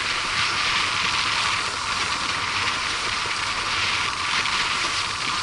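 Steady hiss of water rushing past a windsurf board as it sails across choppy water.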